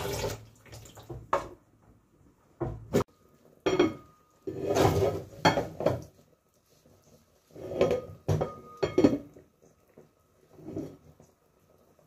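A metal utensil clattering and scraping against a steel cooking pot: a dozen or so separate knocks and short scrapes with pauses between them, some leaving a faint ring. Running tap water stops just at the start.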